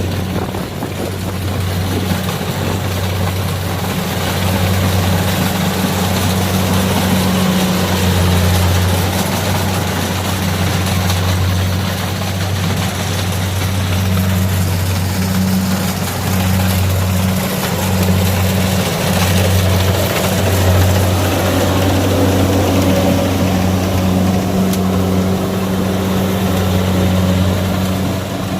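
Kubota DC70 combine harvester running at work, its diesel engine giving a loud, steady low drone that dips briefly a few times about two-thirds of the way in.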